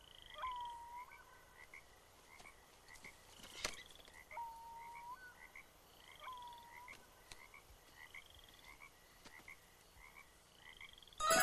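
Frogs calling in a night-time chorus: short croaks repeat about twice a second over recurring drawn-out and trilled calls. There is a single sharp click about three and a half seconds in, and chiming music comes in at the very end.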